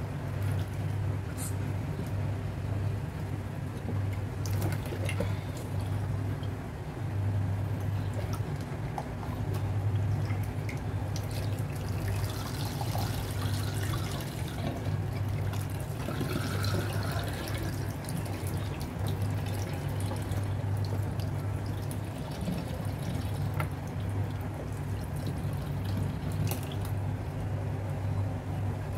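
Water sloshing, dripping and squelching as a raw lung is squeezed and rinsed in water in a stainless steel sink, over a steady low hum.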